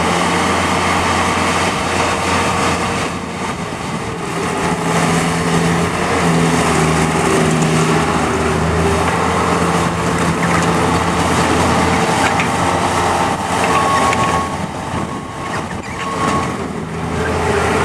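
Bobcat T180 rubber-track skid steer's diesel engine running as the machine is worked, its note steady but easing off and picking back up a couple of times. A thin higher whine comes in briefly near the end.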